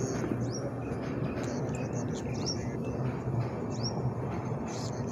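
Railway platform ambience: a steady low hum and background noise, with short, high chirps that fall in pitch, from small birds, recurring every second or so.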